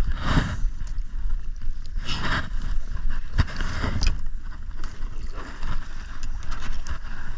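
Wind buffeting the microphone on a kayak on choppy sea, with water sloshing and splashing against the hull in several brief surges.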